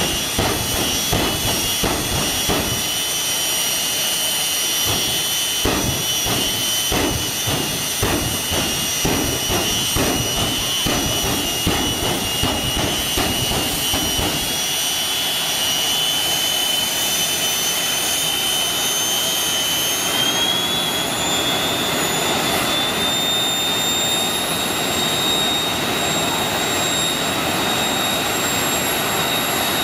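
Jet dragsters' turbine engines running with a steady high whine, broken through the first half by many sharp bursts. About two-thirds of the way through the whine rises in pitch as the engines spool up.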